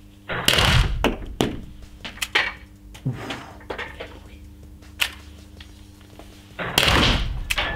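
Umarex HDR 68, a 12 g CO2-powered .68-calibre home-defence revolver, fired twice: once about half a second in and again near the end. Each shot is a sharp pop with an echo off the indoor range walls, and a few lighter clicks fall between the shots.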